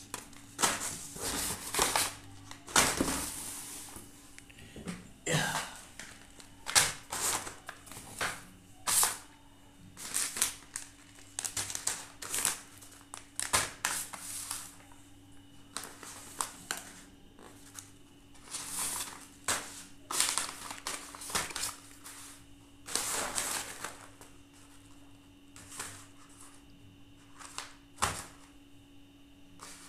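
Plastic snack pouches crinkling and rustling as they are handled, in irregular bursts of varying length with a few sharper clicks among them.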